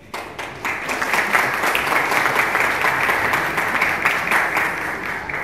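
Crowd applauding. It starts suddenly and fills out within the first second, then keeps up steadily.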